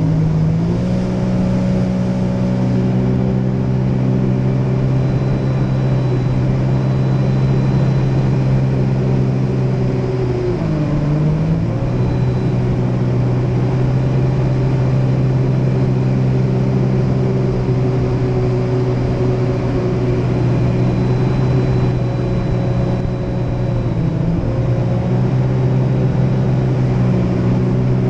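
Personal watercraft (jet ski) engine running at a steady cruising throttle, heard close up from the craft. Its note dips briefly as the throttle is eased and comes back up, once about eleven seconds in and again near the end.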